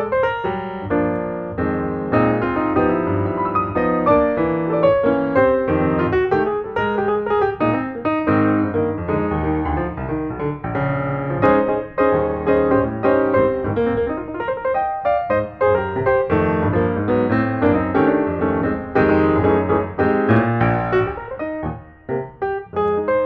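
Background piano music: a steady flow of quick notes over a bass line.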